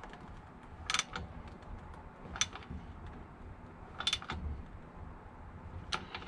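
Four sharp metallic clicks from a wrench, a second and a half to two seconds apart, as a new spark plug is turned down in short strokes into an Echo PB-250LN leaf blower's cylinder, flattening its sealing washer.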